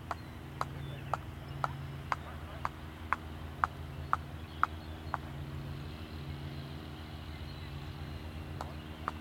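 Sharp clicks repeated about twice a second, stopping about halfway and starting again near the end, over a steady low hum.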